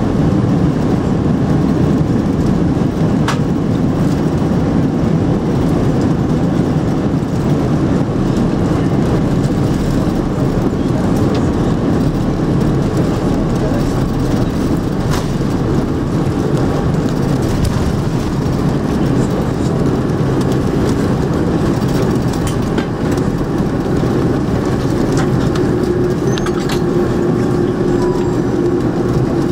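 Cabin noise of an Airbus A300B4-600 slowing down on the runway after touchdown, ground spoilers up: a loud, steady rumble of engines and wheels on the runway. A steady hum joins in near the end.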